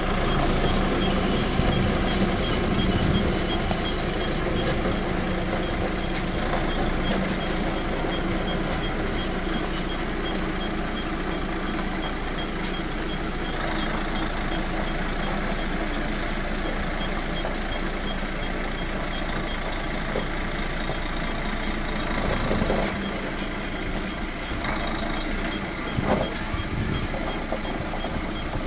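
Mercedes-Benz Actros 3340 dump truck's V6 11.9-litre turbodiesel running as the truck manoeuvres, with its reversing alarm sounding a steady train of high-pitched beeps.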